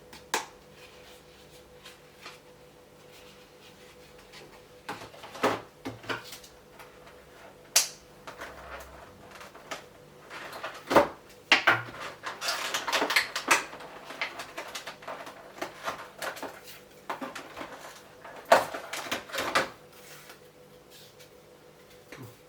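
Handling of toy packaging and plastic parts: scattered clicks and knocks of plastic, with a stretch of rustling about halfway through.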